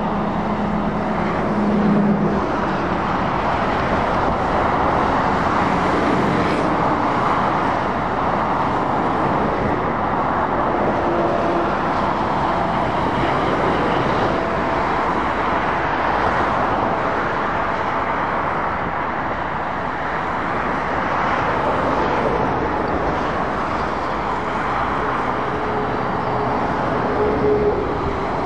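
Steady motorway traffic noise: lorries and cars passing at speed, tyre noise on the road surface, with a few brief engine hums from passing lorries.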